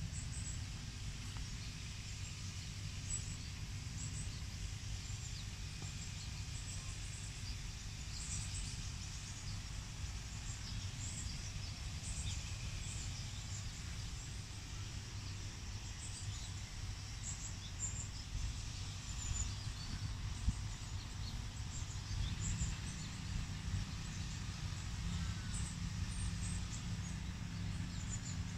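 Outdoor park ambience: a steady low rumble with faint, short bird chirps scattered throughout.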